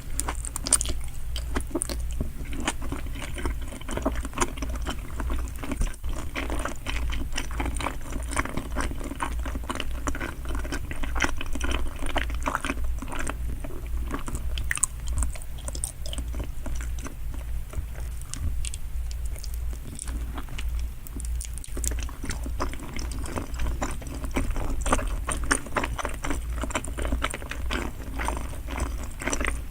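Close-miked chewing of salmon sushi: a steady run of wet mouth smacks and small clicks, with some bites.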